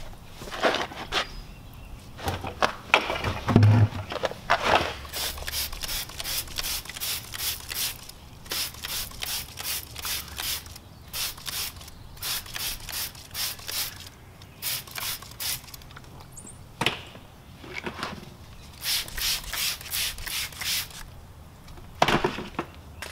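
Brush scrubbing a wet car wheel, in quick rhythmic strokes about three a second, in several runs with short pauses between them.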